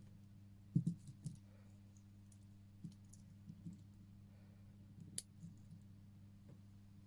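Scattered small clicks and taps from handling a watch and small tools on a workbench, the loudest about a second in and another a little after five seconds, over a steady low electrical hum.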